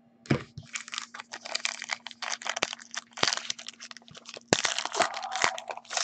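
Foil wrapper of a football trading-card pack being torn open and crinkled by hand: a dense run of crackles and small snaps, louder in the second half.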